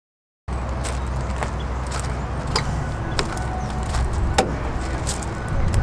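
A 6.4L Power Stroke V8 turbo-diesel in a Ford F450 idling with a steady low rumble that starts about half a second in. Footsteps on gravel sound over it roughly every half second.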